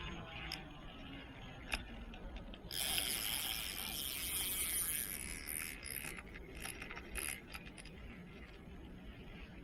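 Fishing reel clicking and whirring in a rapid ratchet as line is worked against a hard-pulling fish, with a louder rush of hiss about three seconds in that lasts a couple of seconds.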